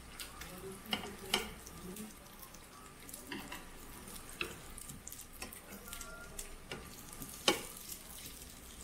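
Pork belly slices sizzling on a tabletop grill pan, with metal tongs clicking and scraping against the pan at irregular moments as the meat is turned. The sharpest click comes about seven and a half seconds in.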